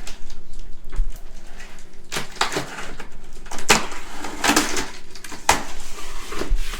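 Cardboard shipping box being opened by hand, its flaps and packaging scraping and rustling in a series of short bursts.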